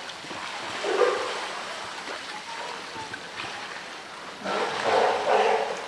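Steady rush of running water in a polar bear's pool enclosure, with a short louder burst about a second in and a louder rushing noise in two bursts near the end.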